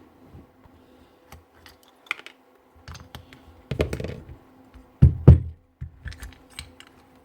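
Small parts of a Bosch GRW 11 E mixing drill's gear selector clicking and knocking as it is taken apart by hand, with a few louder knocks about four and five seconds in. A faint steady hum runs underneath.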